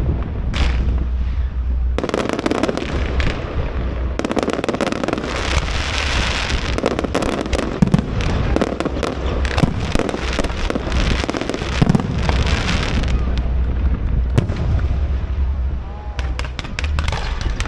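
Fireworks display: a dense, continuous run of bangs and crackling over a low rumble, thinning to scattered pops near the end.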